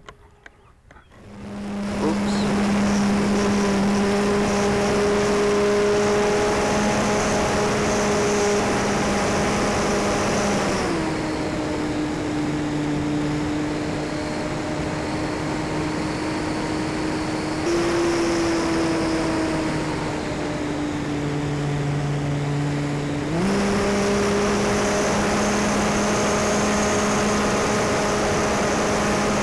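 RC airplane's electric motor and propeller running, heard close up from the plane itself. It comes up to a steady high hum about a second and a half in, drops in pitch when throttled back near the middle, and rises again to the higher pitch a few seconds before the end.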